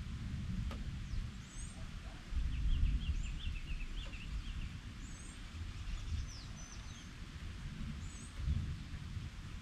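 Wild birds calling: a short, high call repeating every two to three seconds, a quick run of chirps about two to three seconds in, and a couple of falling whistles around six seconds in, over an uneven low rumble.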